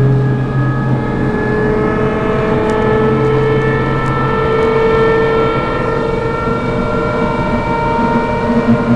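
EN57 electric multiple unit pulling away: the traction motors and gears whine in several tones that slowly rise in pitch as the train gathers speed, over the rumble of the running train.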